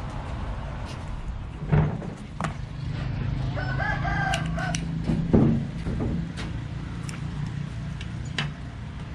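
A rooster crowing once, a call of about a second starting about three and a half seconds in, over a steady low hum, with several sharp knocks, the loudest shortly before and just after the crow.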